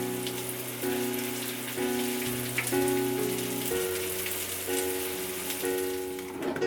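Background music of held chords changing about once a second, over a steady hiss.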